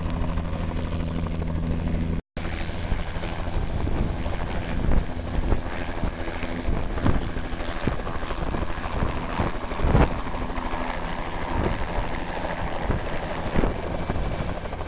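A turbine helicopter runs on the ground with its main rotor turning, at first a steady low droning hum. After a brief cut about two seconds in it is much closer, and the rotor's downwash buffets the microphone in irregular gusts over the engine and rotor noise.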